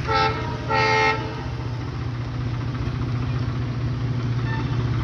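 Two short blasts of a WDG4D diesel locomotive's horn about half a second apart, the second a little longer and louder, over a steady low drone.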